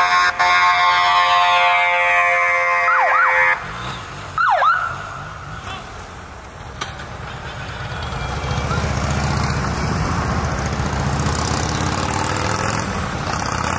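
Police motorcade escort sounding off: a long steady horn blast for about three and a half seconds, then short siren yelps that sweep quickly in pitch. About eight seconds in, the low engine rumble of the motorcade vehicles passing close by builds and stays steady.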